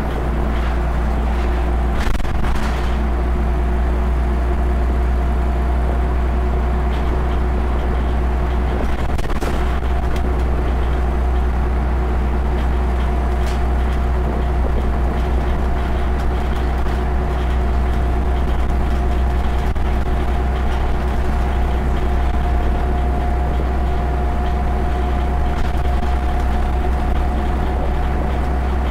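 Scania OmniCity bus heard from inside the passenger saloon while under way: a steady low engine drone with a steady whine above it, and a few short rattles or knocks about 2, 9 and 13 seconds in.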